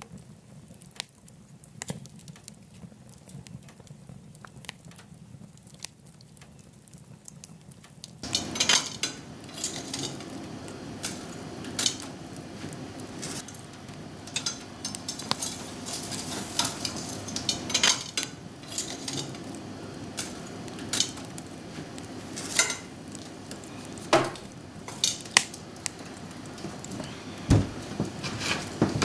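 Wood fire crackling in a wood-burning stove: sparse faint pops at first, then about eight seconds in it gets louder, with a steady hiss and frequent sharp crackles and snaps.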